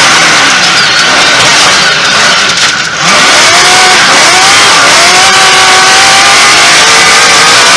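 Trophy truck's V8 engine at racing speed, heard from inside the cab, its pitch climbing and dropping again and again as the driver works the throttle through the gears. A brief lift just before three seconds in, then the engine climbs hard again, over a steady rush of road and wind noise.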